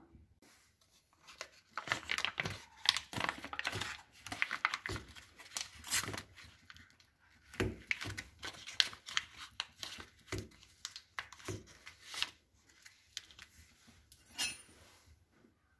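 A paper butter wrapper crinkling and tearing as it is peeled open off a block of butter, in irregular bursts of rustling, with one sharper crinkle near the end.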